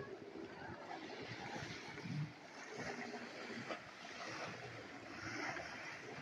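Small waves washing gently on a sandy beach, with light wind on the microphone; the wash swells and eases.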